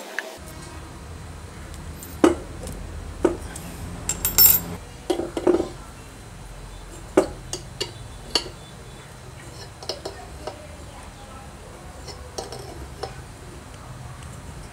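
Hand tools (a hex key, then an open-end spanner) clinking and knocking against a metal air-compressor oil pump as its bolts and a brass fitting are tightened. The sharp metallic clinks come irregularly and are loudest and most frequent about two to six seconds in, then sparser and fainter.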